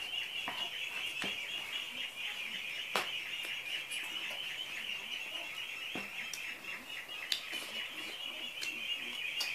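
Close-up eating sounds of a person tearing and chewing chicken by hand, with a few sharp clicks and crunches, over a steady high-pitched chirping chorus in the background.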